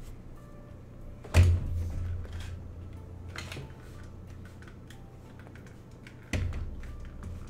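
Two heavy thumps with a low boom that dies away over about a second, one about a second and a half in and one near the end, amid scattered light clicks.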